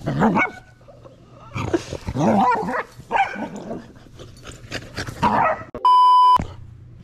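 Two dogs play-fighting, barking and snarling in several bursts. Near the end a loud, steady electronic test-tone beep sounds for about half a second.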